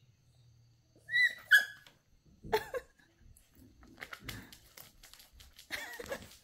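A dog whining in short, high-pitched squeaks, two quick ones about a second in and another midway, followed by a patter of small clicks and rustling.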